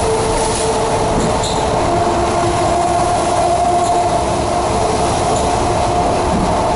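ED4MK electric multiple unit running along the line, heard from inside the car: a steady rumble with a hum of several steady tones, which shift slightly in pitch about two seconds in.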